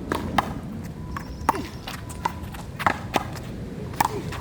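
A ball being struck and bouncing: about seven sharp slaps and knocks at uneven intervals, over a steady background hiss.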